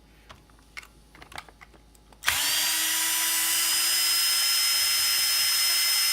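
A few light clicks of parts being handled, then about two seconds in a power drill-driver starts and runs at a steady speed with a constant whine, backing out a screw from the chainsaw's housing.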